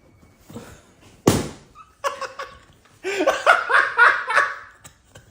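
A person laughing in a quick run of pulsing bursts about three seconds in, after a short sharp noise about a second in.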